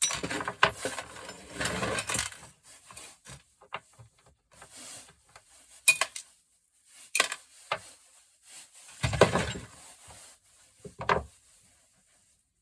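Small brass and steel parts of a gas stove valve being taken apart and handled: irregular clinking, rubbing and clatter of metal pieces, busiest at the start, then a few sharp knocks and short rattles.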